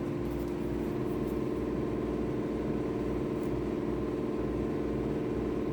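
Electric sander running with a steady hum, sanding down cured epoxy pour fill on a guitar body to take out the shiny spots.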